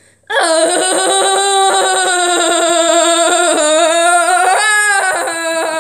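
A voice wailing one long, high, slightly wavering note for about six seconds, which slides down in pitch as it ends: an exaggerated crying wail.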